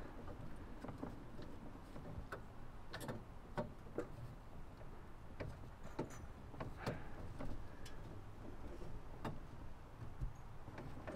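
Faint, scattered plastic clicks and taps as a gloved hand works a new HID xenon bulb back into its socket in a car's headlight housing, twisting it until it seats.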